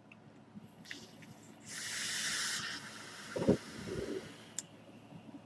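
A draw on a sub-ohm dripping atomizer fired by a mechanical mod: about a second of steady rushing hiss as air is pulled through the drilled-out atomizer over a 0.23 ohm coil. Two short, softer sounds follow soon after.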